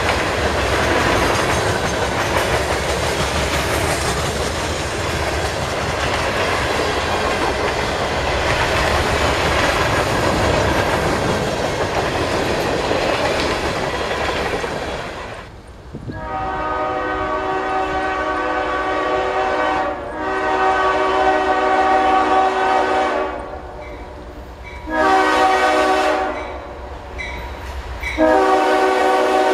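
Loaded freight cars rolling past close by, a steady rumble of steel wheels on rail. After a cut about halfway, a CSX GE Evolution-series locomotive's air horn sounds the grade-crossing signal as it approaches: two long blasts, a short one, then a long one starting near the end.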